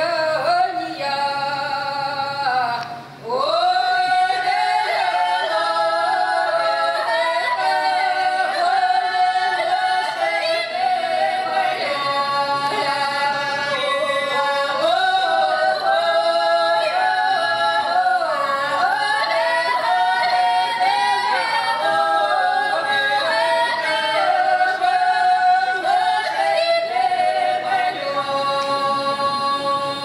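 Three women singing a Russian folk song unaccompanied, in several parts, with long held notes and sliding pitches. There is a brief break for breath about three seconds in.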